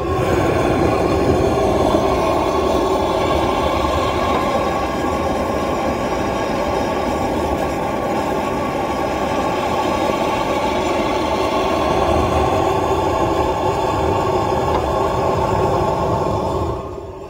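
Propane weed-burner torch running loud and steady, its flame jet scorching the outside of a pine fence post; it shuts off sharply near the end.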